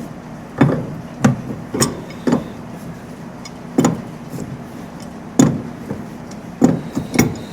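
About eight short, sharp metal knocks at uneven intervals, tools striking and working a seized, rusted fitting, over a faint steady hum.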